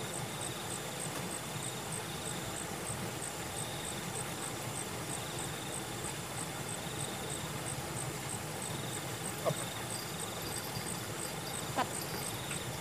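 Insects calling: a very high chirp repeating evenly about three times a second, with a lower buzzing trill that comes in short bursts every couple of seconds. Two small clicks sound near the end.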